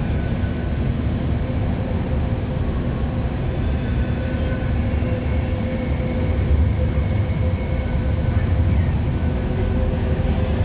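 Hong Kong MTR Light Rail Phase I car running: a steady low rumble with a constant electrical hum, growing a little louder about six seconds in.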